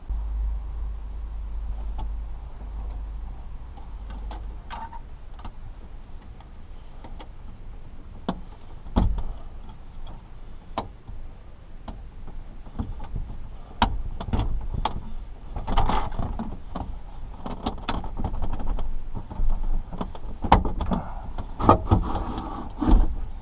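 Clicks, knocks and rattles from a factory car radio being worked out of the dash of a 1994 Ford F-150, using straightened coat-hanger removal tools that press back its spring-loaded latches. The knocks come sparsely at first and grow thicker and louder in the second half.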